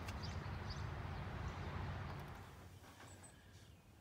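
A few short, faint songbird chirps over a steady low outdoor rumble that drops away a little over two seconds in.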